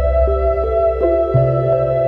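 Ambient background music: sustained synth tones over a held bass note that shifts to a new note about a second and a half in.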